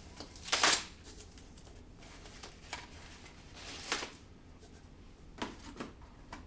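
Packaging being handled as an item is taken out of a box: a louder rustle about half a second in, another near four seconds, and a few light knocks near the end.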